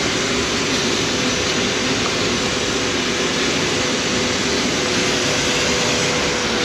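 Steady loud running noise of diesel machinery heard from inside a boat's open engine compartment. A steady whine comes in about two seconds in and holds.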